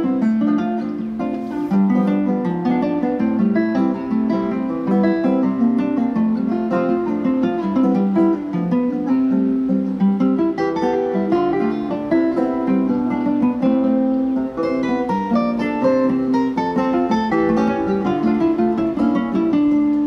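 Acoustic guitar music, quickly picked and strummed notes, played back through the 808 LXS wireless speaker.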